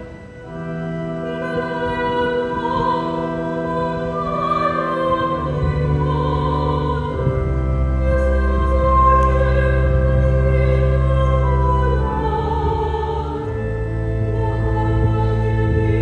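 A female cantor sings a slow solo melody through the church's microphone over held low accompaniment chords, which change every few seconds.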